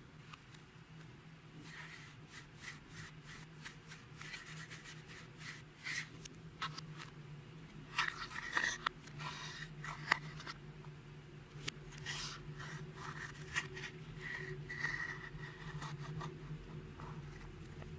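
Clear slime, with eyeshadow and glitter worked into it, being squished and kneaded by hand: irregular sticky clicks, pops and crackles, over a steady low hum.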